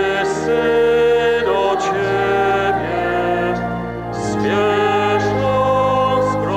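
Church choir singing a slow hymn in Polish, with long held bass notes sounding beneath the voices.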